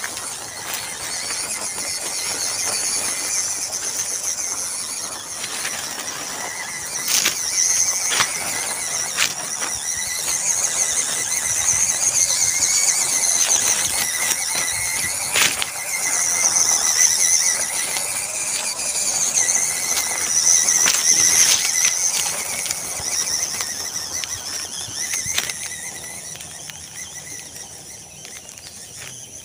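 WPL D12 RC mini pickup truck's electric motor and gearbox whining, the high-pitched whine rising and falling with the throttle, with scattered crackles from dry leaves under the tyres. The whine fades over the last few seconds as the truck moves away.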